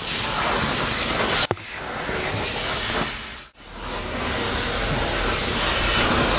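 A steady, loud rushing hiss that cuts out sharply for a split second twice.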